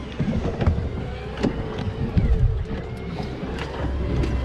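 Boat motor running with a steady low rumble, with scattered sharp knocks and taps on the boat's deck.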